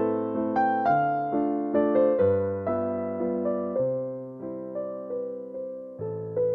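Background music: a slow, gentle piano melody over held low notes, each note struck and then fading.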